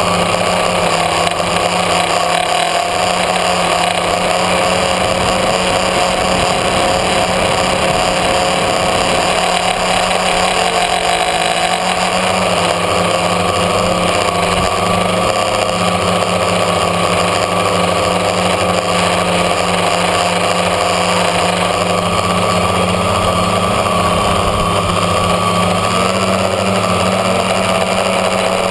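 A tricopter's electric motors and propellers whining steadily in flight, several tones at once that shift a little in pitch as the throttle changes, over a hiss of rushing air, heard from the camera on board.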